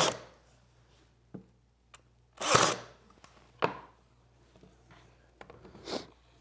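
Ryobi cordless pin nailer firing pins into a glued wooden tray part, several sharp shots a second or two apart, with a light knock in between.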